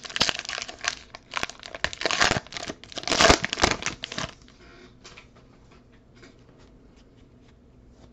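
Foil wrapper of a Panini Prizm baseball card pack crinkling and tearing as it is ripped open by hand, for about four seconds, then faint light ticks as the cards are handled.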